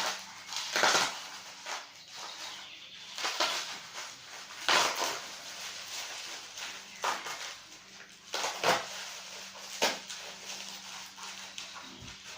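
Packaging being cut and torn open with a blunt utility knife: a run of irregular scraping, rasping and rustling strokes.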